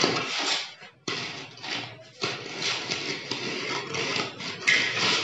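Mason's trowel scraping and pressing cement plaster into a wall corner: rough scraping strokes with short breaks about one and two seconds in, the loudest stroke near the end.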